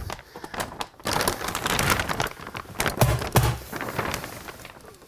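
Plastic vapor-barrier sheeting crinkling and rustling as it is pulled and stretched up a wall, with two short low thuds about three seconds in.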